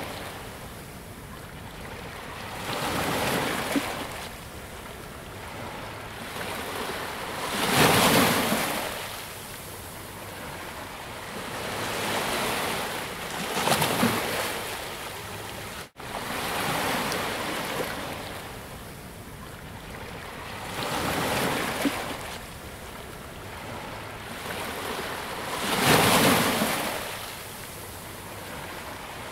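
Ocean waves breaking and washing up a beach, a surge every five or six seconds, the biggest about a third of the way in and again near the end. The sound drops out for an instant midway.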